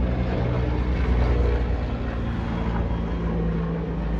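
A motor running steadily in the background, a low hum with a stack of steady tones, easing off slightly near the end.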